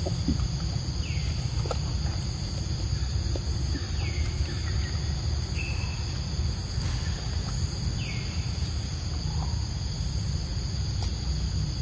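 Steady high-pitched drone of forest insects, with a bird giving a short downward-sliding chirp every few seconds, over a constant low rumble.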